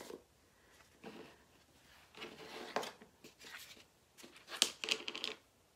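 A small jar of Chalk Couture chalk paste being twisted open and handled: a series of soft, short scrapes and taps spread over several seconds, the loudest a little past the middle.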